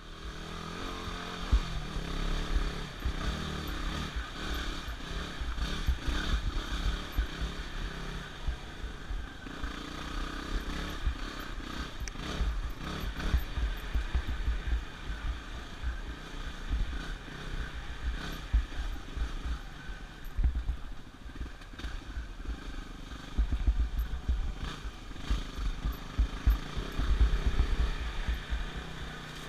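Yamaha WR250R dirt bike's 250 cc single-cylinder four-stroke engine running under way, its revs rising and falling, with bursts of low rumble over it.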